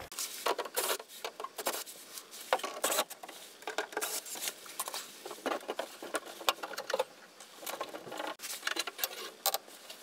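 A sheet-metal furnace access panel being handled and lifted off, with irregular clicks, taps and scrapes of metal throughout.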